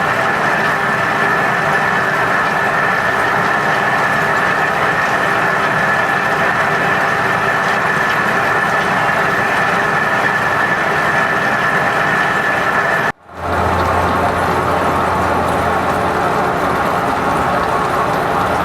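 Metal-turning lathe running steadily, with a constant high whine over the machine noise. About 13 seconds in the sound cuts out abruptly for a moment and returns with a deeper hum added.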